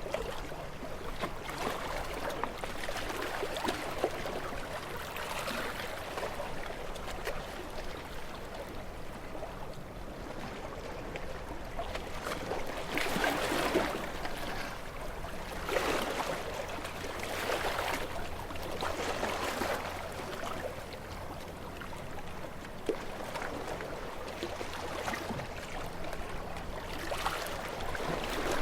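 Sea waves washing against rocks, the water surging and draining back in repeated washes every couple of seconds, the strongest of them about halfway through.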